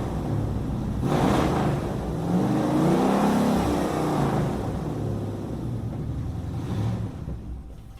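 Muscle car engine being revved: a sharp blip about a second in, then a longer rev whose pitch rises and falls back, settling to a lower, steadier idle that fades near the end.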